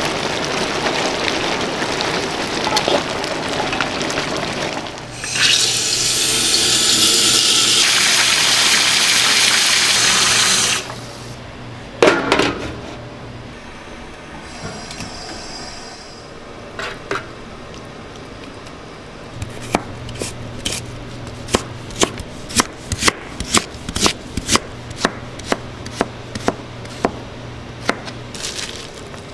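Sauce cooking in a wok, then several seconds of loud rushing water, as from a running tap, which stops suddenly. After a knock and a quieter stretch, a kitchen knife chops vegetable strips on a plastic cutting board in quick, even strokes, over a low steady hum.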